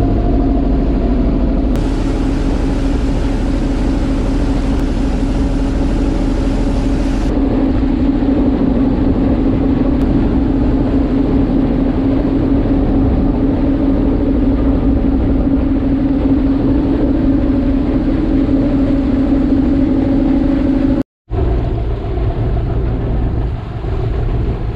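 Passenger ferry's engine running steadily, a loud low drone with a constant hum, under a hiss of water and wind. The sound cuts out for an instant about 21 seconds in.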